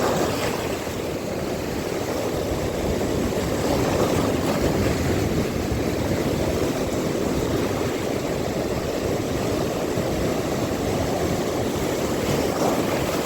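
Steady rushing noise of sea surf.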